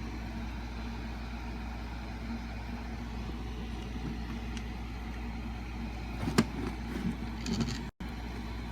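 Steady low background hum. About two-thirds of the way through comes a single sharp click, then a second or so of light clattering.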